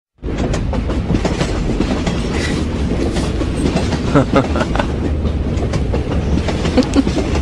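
Subway train car running, heard from inside the carriage: a steady low rumble with rail clatter and scattered clicks and rattles.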